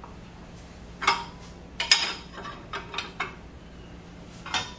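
Steel hand tools and metal lathe-spindle parts being picked up and set down on a cast-iron machine table: about half a dozen separate metal clinks, a couple of them ringing briefly.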